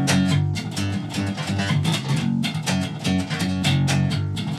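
Jackson electric bass played fingerstyle: a fast, even run of plucked notes.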